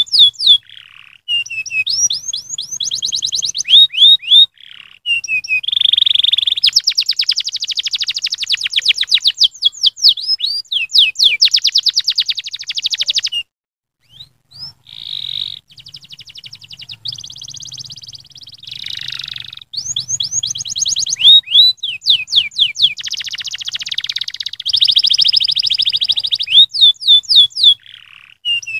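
Domestic canary singing a long, fast song of rapid trills and rolling notes, broken by a short pause about halfway through.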